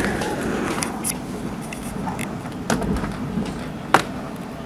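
Thunderstorm ambience: a steady low rumble with several sharp clicks scattered through it, the loudest near the end.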